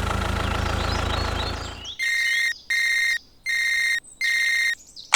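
A steady low motor hum for about two seconds, then four evenly spaced electronic beeps of one steady high pitch.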